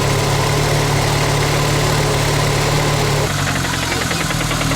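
Pickup truck engine idling steadily, treated with Lucas Oil Stabilizer to quiet an engine knock. About three seconds in, the sound changes and a fast ticking comes in over the hum.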